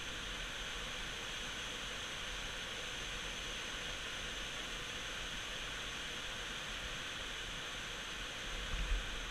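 Whitewater at Big Falls on the Cuyahoga River, running at a low flow of about 170 cfs, rushing over stepped rock and concrete ledges in a steady, even hiss. A few low bumps come in near the end.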